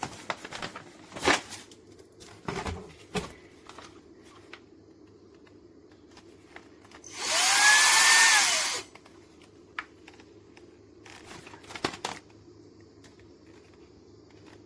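Shark Stratos cordless stick vacuum switched on briefly: the motor whines up, runs loudly for about a second and a half, and winds down. Clicks and knocks of handling the plastic parts come before and after.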